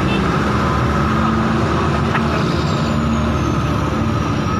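Hydraulic excavator's diesel engine running steadily at a constant level.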